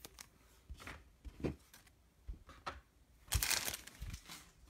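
Trading cards and their pack wrappers being handled and cleared off a table: scattered light taps and rustles, with a louder crinkling rustle about three and a half seconds in.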